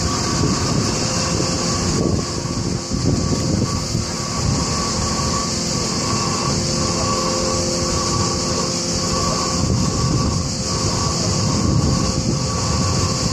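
Helicopter running steadily, heard from on board: a constant low rumble with a thin, steady whine over it.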